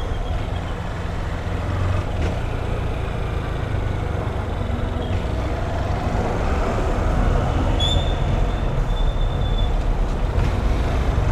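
Honda CG 160 Titan single-cylinder motorcycle engine running under way, with a rumbling exhaust and steady wind and road noise. About eight seconds in, a thin high squeal sounds for a second or two.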